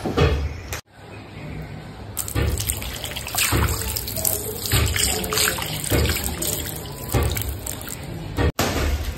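Stone roller of an ammi (flat grinding stone) rolled back and forth over soaked moong dal and water: wet scraping and sloshing, with a stroke about every second. There are two brief breaks, about a second in and near the end.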